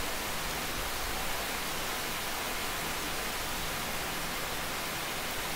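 Steady hiss with no other sound: the recording's background noise.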